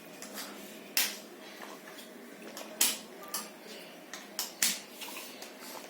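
Cardboard jigsaw puzzle pieces handled and tapped down on a hard surface: about five sharp clicks, with quieter rustles between.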